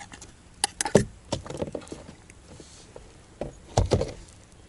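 Scattered clicks and knocks of handling in a boat, with a cluster about a second in and a heavy thump a little before the end.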